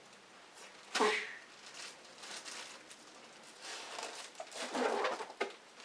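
Plastic coating bag crinkling and rustling in irregular bursts as it is handled and shaken, the Shake 'n Bake coating step for pork chops. A single sudden, sharp, loud sound about a second in is the loudest moment.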